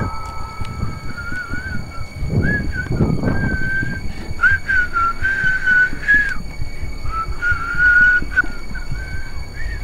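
A whistled melody, one clear line moving through short held notes with slight waver, with brief gaps between phrases. Under it runs a low rumbling noise that swells a couple of seconds in.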